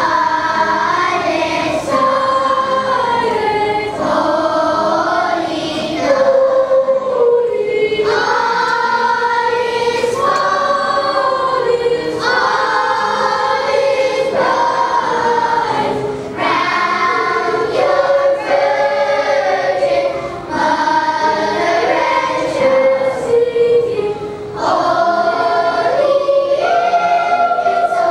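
Children's choir singing a song together, many voices holding long notes and sliding between pitches, phrase after phrase with short breaths between.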